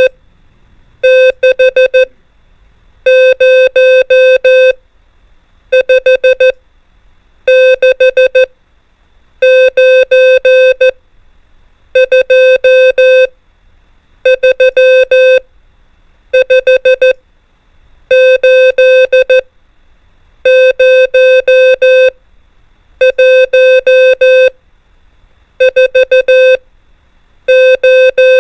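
Morse code (CW) practice tone sending numbers. A single steady-pitched electronic tone is keyed in dots and dashes, one digit at a time, with short pauses between digits: more than a dozen in a row.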